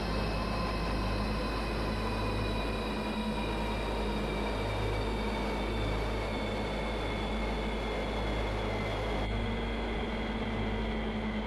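Propeller motor of an RC Extra 300S aerobatic model plane at high power through takeoff and climb, heard from on board: a steady whine whose tones slowly fall, over heavy wind rumble on the onboard microphone.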